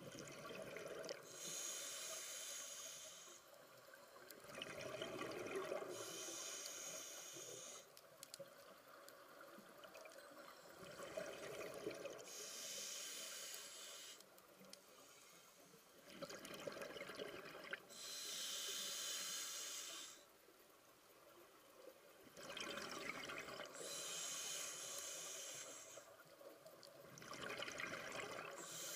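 Scuba diver breathing through a regulator underwater: a hissing inhale, then a rush of exhaled bubbles, repeating slowly, about one breath every five to six seconds.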